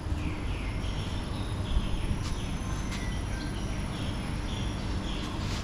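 Small birds chirping, short falling calls repeated every fraction of a second, over a steady low background rumble and a faint thin high whine.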